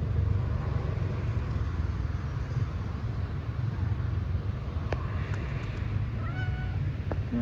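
Steady low rumble of road traffic, with a couple of faint clicks and a brief high call about six seconds in.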